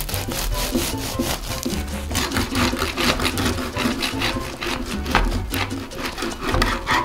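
Bread knife sawing back and forth through a crusty whole wheat loaf topped with sunflower seeds, in quick repeated scraping strokes, with soft background music.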